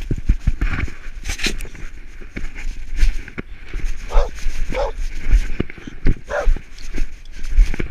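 A dog wearing a back-mounted camera gives three short calls, the first two close together and the third about a second and a half later. Frequent dull thumps and fur rubbing against the body-mounted camera sound as the dog moves.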